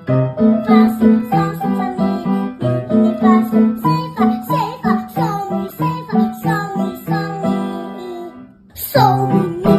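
Background music: a bouncy children's-style tune with plucked strings and sung melody, briefly dropping out near the end before starting up again.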